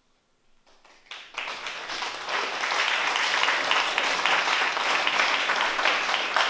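Small audience applauding: near silence at first, then clapping starts about a second in and swells quickly to a steady, full applause.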